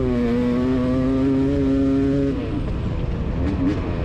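500cc single-cylinder two-stroke dirt bike engine (a YZ500 conversion) pulling hard at high revs, its pitch creeping up. About two seconds in the throttle closes and the engine note drops away, wavering at lower revs.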